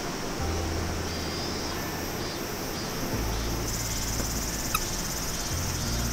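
Insects buzzing high-pitched, the sound thickening about four seconds in, over a steady outdoor hiss.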